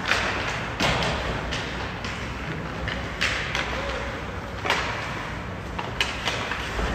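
Ice hockey play: a series of sharp knocks and thuds, about six, from sticks, puck and boards, over the steady noise of the rink.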